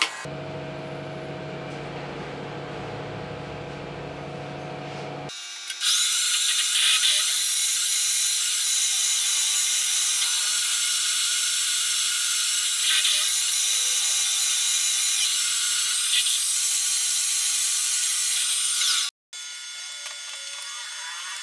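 Milling machine end mill cutting a slot in a metal fly cutter body: a loud, steady, high-pitched cutting noise for about thirteen seconds, ending abruptly. Before it, a lower steady machine hum; after it, a quieter stretch as a tap is turned into a hole in the part.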